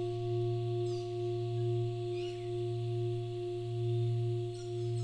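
A steady musical drone: a low hum with a few higher sustained tones above it, gently swelling and easing in loudness. Faint bird chirps come through a few times.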